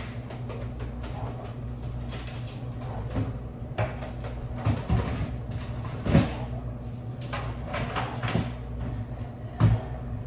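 Kitchen handling sounds: a series of knocks and clatters from cabinet doors and items being moved, the loudest about six seconds in and near the end. Underneath runs the steady low hum of a running kitchen appliance.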